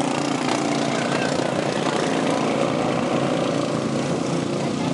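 Several racing lawn mowers' engines running together on the track, a steady layered engine sound with no let-up.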